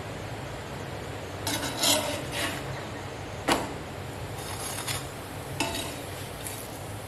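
Slotted steel spatula scraping and clinking against a cast-iron tawa while turning a chapati, with one sharp knock about halfway through, over a steady low hum.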